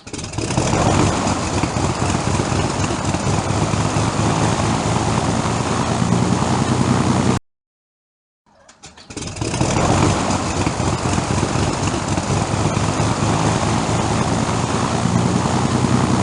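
Propeller aircraft engine starting, twice. A few sputtering firings, then the engine catches and runs steadily for about seven seconds before cutting off suddenly. After a second of silence the same start plays again.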